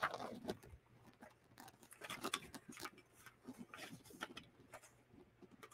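Cardstock rustling and light plastic clicks and taps as paper is handled and slid into a handheld craft punch: scattered soft ticks, no punch stroke.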